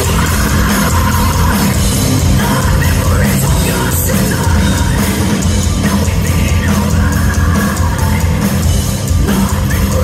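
Metal band playing live at full volume: distorted guitars, bass and drums, with a female singer's vocals over them.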